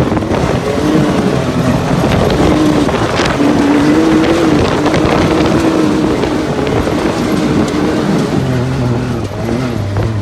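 A motor vehicle engine running loudly, its pitch rising and falling unevenly.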